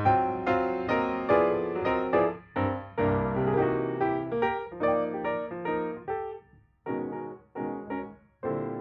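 Background piano music: a melody of struck notes that slows and thins out, ending on a held chord near the end.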